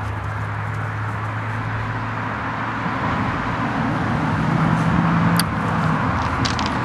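Steady engine hum of road traffic, growing louder up to about five seconds in and then dropping off suddenly, with a few faint clicks near the end.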